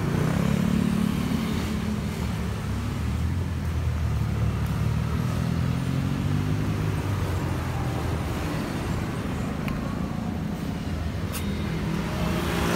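Road traffic with a motor vehicle engine running close by: a steady low hum whose pitch slowly drifts up and down. A few faint ticks come through.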